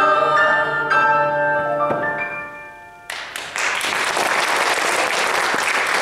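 A women's choir, with piano accompaniment, sings the closing notes of a song, which die away about two to three seconds in. About three seconds in, audience applause breaks out and continues.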